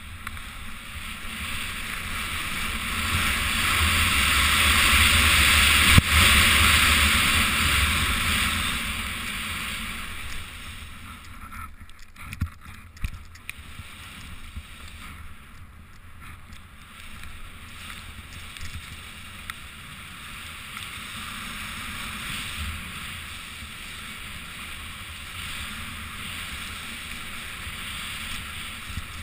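Snowboard riding through deep powder snow: a rushing hiss of spraying snow and wind that swells over the first several seconds, then settles into a quieter steady hiss. A sharp knock about six seconds in is the loudest moment, with a few smaller knocks around twelve seconds.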